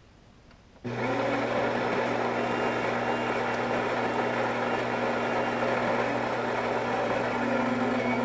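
Bean-to-cup coffee machine's grinder motor running steadily with a hum and a grinding rush. It starts about a second in and cuts off near the end. The cycle fails to deliver a coffee, which the owner puts down to the beans not feeding from the hopper.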